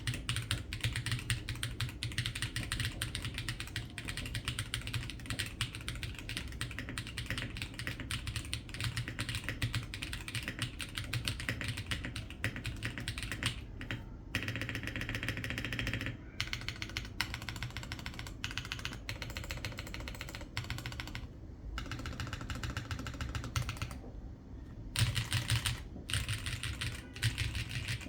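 Fast typing on a stock Eweadn C65 V1 mechanical keyboard with Feker Marble White switches, a dense run of key clicks with a few brief pauses, over a steady low background hum, as picked up by a smartphone microphone.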